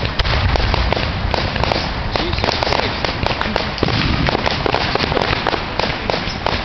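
Fireworks display: aerial shells bursting overhead in a dense, unbroken run of bangs and crackling.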